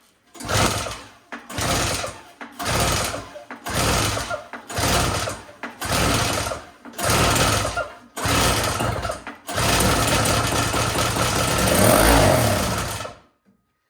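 Yard Machines single-stage two-stroke snowblower engine being pull-started: about nine recoil pulls roughly a second apart, each turning the engine over, then it fires on starting fluid and runs for about four seconds, its pitch rising and falling, before cutting out suddenly.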